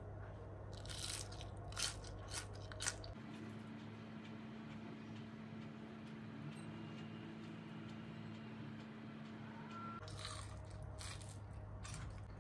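Crispy fried potato sticks crackling and crunching as they are handled by hand. There are a few sharp crackles in the first three seconds and another cluster near the end, over a steady low hum.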